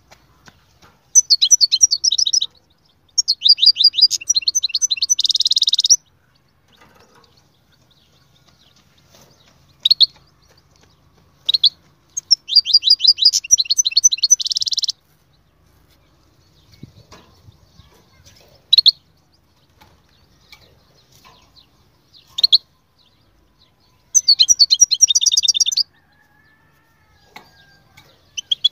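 European goldfinch singing: four bursts of fast, high twittering, each one to three seconds long, with single short call notes in the pauses between them.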